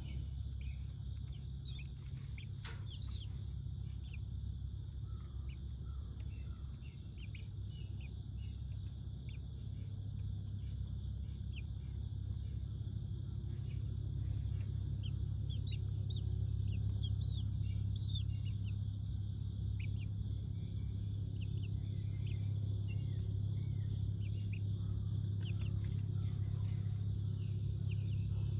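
Young chickens peeping softly in many short, scattered notes, over a steady high-pitched whine and a steady low rumble.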